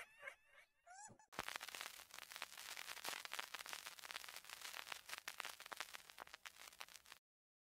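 Faint edited-in sound effects. A run of rising chirps fades out in the first second. Then comes about six seconds of dense, fine crackling, which cuts off abruptly near the end.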